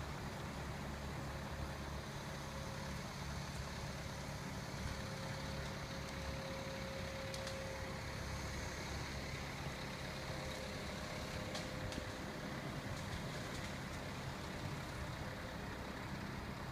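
Heavy diesel engine running steadily at low speed, with a faint steady whine and a few small clicks over it.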